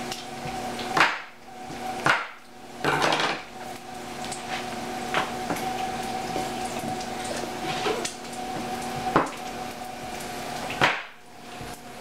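A kitchen knife and apple slices knocking and clinking against plates and a tiled countertop as an apple is cut and the slices are set out: about half a dozen separate knocks, with a steady hum underneath.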